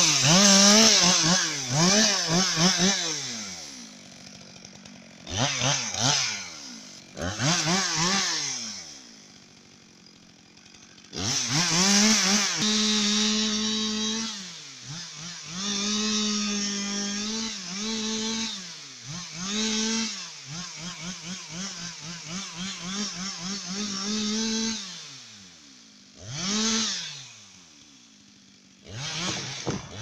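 Two-stroke chainsaw revving up and down in repeated bursts, with stretches held at a steady speed while cutting, as branches are taken off a felled spruce.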